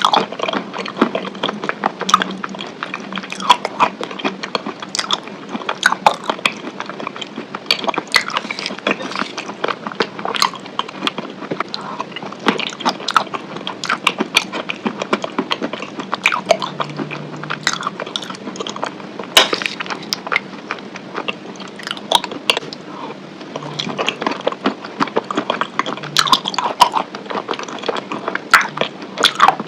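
Someone biting and chewing chicken wings close to the microphone, a dense, unbroken run of sharp clicks and crackles.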